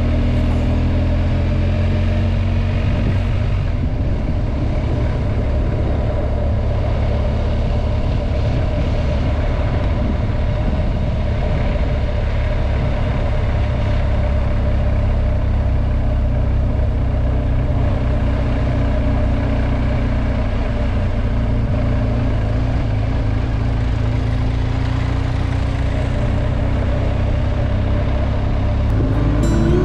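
Motorcycle engine running at a steady cruise while riding, its low note holding under a constant rush of wind and road noise.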